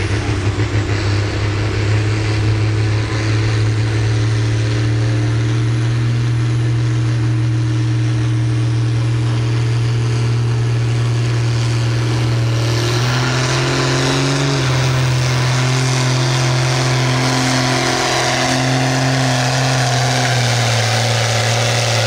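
John Deere farm stock tractor's diesel engine running at full load as it pulls a weight-transfer sled down the track: a loud, steady drone whose pitch steps up slightly a little past halfway.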